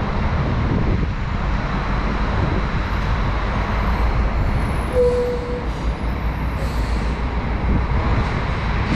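Coach bus engine running with a steady low rumble. A short beep sounds about five seconds in.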